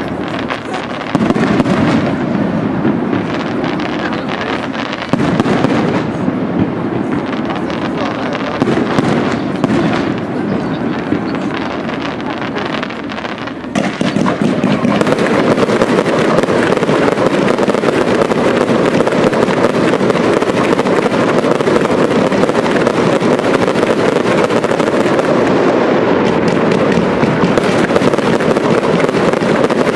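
Fireworks display: for the first half, scattered shell bursts and crackling. About halfway through, a dense, continuous barrage of bursts and crackle sets in suddenly and keeps going.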